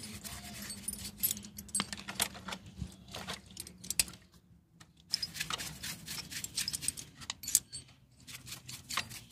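Honda CB 125 E rear wheel axle being scrubbed and turned in a bowl of gasoline: irregular metallic clinks and rattles with brushing, pausing briefly a little before halfway.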